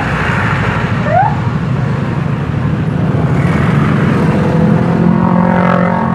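Motorcycle engine and surrounding scooter and car traffic running in slow, dense stop-and-go, with low wind rumble on the helmet microphone. A short rising chirp sounds about a second in, and a steady pitched tone, like a vehicle horn, holds for about a second and a half near the end.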